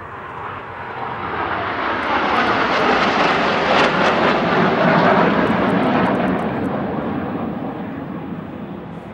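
A formation of BAE Hawk T1 jet trainers flying past: the jet noise builds to its loudest about halfway through, then fades as the formation moves away.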